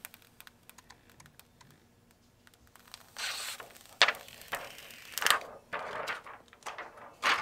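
Key clicks and handling of a MacBook Pro as it is switched on: a few faint clicks, then rubbing and several sharp taps from about three seconds in.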